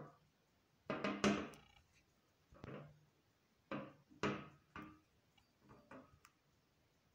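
Bronze-coated aluminium desktop plaque handled on a glass tabletop: a few irregular knocks and scrapes, some with a brief metallic ring, as it is lifted and turned over.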